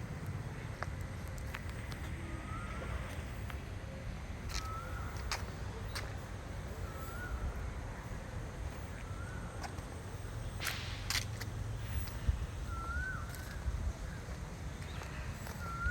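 A bird repeating a short warbling call about every two seconds, over a steady low outdoor rumble with a few sharp clicks.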